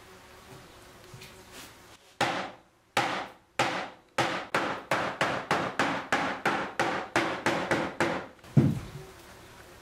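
Wooden rolling pin beating folded cloth over flower petals on a board, pounding the petals so their pigment prints into the fabric. The blows come a few at a time and then about three a second, close to twenty in all, ending with one heavier, deeper thump.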